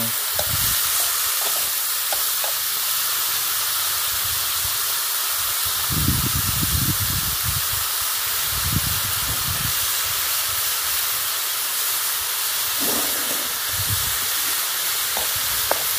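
Pangasius fish steaks and pork frying in a steel wok, a steady sizzling hiss, with a few dull low bumps around the middle.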